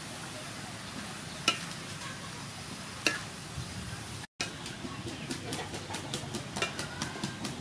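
Spatula scraping and clacking against a wok as shredded bamboo shoot and shrimp are stir-fried, over a steady sizzle. Two sharp clacks come in the first half; after a brief break, the clacks come quicker and repeated.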